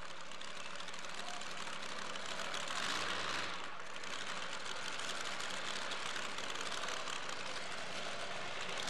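Modified two-wheel-drive pulling truck's engine idling under a steady hiss, its low note swelling briefly about three seconds in.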